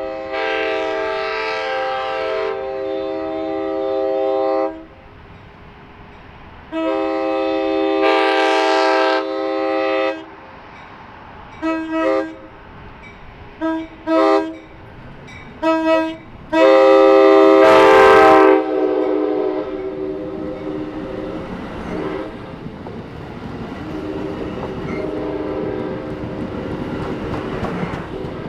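Passenger locomotive's K5LA multi-chime air horn sounding the grade-crossing signal: two long blasts, a string of quick short toots, then a final long blast. After that the train runs past, with wheels clicking over the rails.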